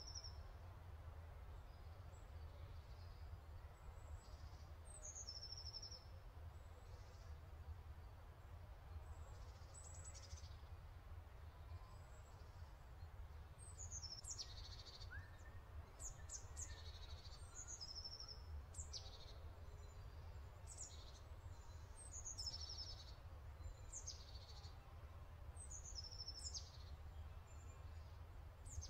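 Faint songbird chirps: short, high calls that fall in pitch, repeated every second or so and more frequent in the second half, over a steady low hum.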